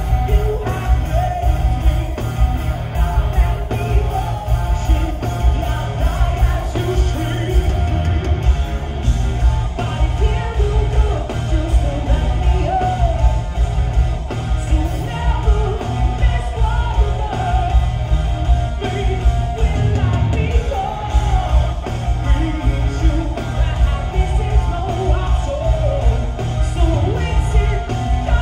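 Rock band playing live in a concert hall: electric guitars, bass guitar and drums, with a male voice singing. The bass and drums' low end is the loudest part.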